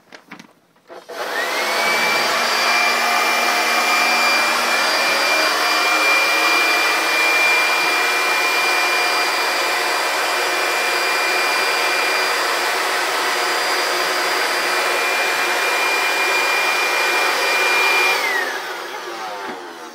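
Corded electric leaf blower switched on about a second in, whining up to speed, then running steadily with a high whine over the rush of air. Near the end it is switched off and its pitch falls as it spins down.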